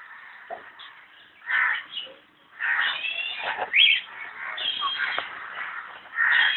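Birds calling: a string of short calls and chirps, some rising in pitch, coming in several bouts.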